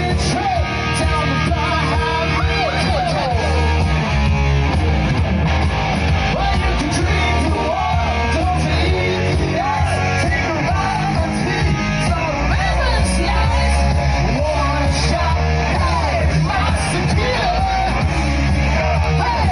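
Loud rock music with a singer over electric guitar and a heavy, steady bass.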